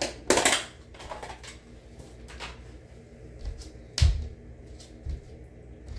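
Handling noises from a plastic Tupperware food container: a sharp rattling burst just after the start and a few light knocks, then one dull, heavy thump about four seconds in.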